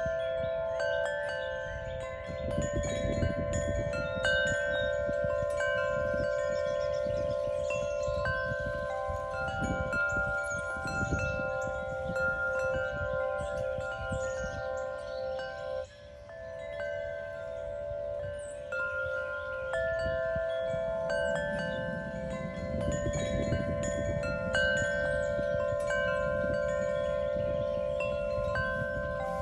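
Wind chimes ringing: many sustained, overlapping tones struck at irregular moments and fading slowly, over a low, gusty rumble.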